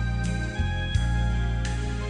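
Instrumental background music, with new notes starting about every half second over a held low bass.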